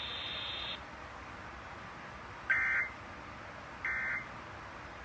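Two short, identical bursts of EAS/SAME digital data tones from a NOAA Weather Radio, a little over a second apart, over faint radio hiss. These are the end-of-message bursts that close the broadcast flash flood warning.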